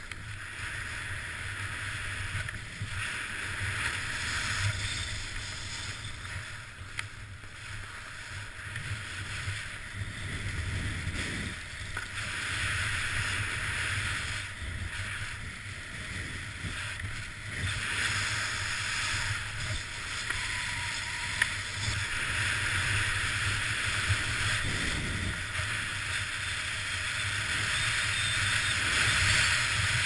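Skis hissing and scraping over packed, tracked snow on a downhill run, swelling and fading with each turn, over a steady low rumble of wind on a GoPro.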